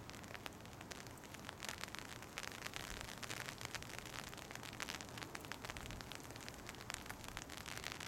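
Rain pattering: a dense, irregular run of small drop ticks over a faint hiss.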